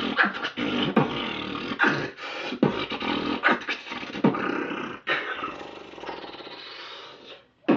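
A man beatboxing: sharp percussive mouth sounds in a rough beat, then a longer held sound that fades out near the end.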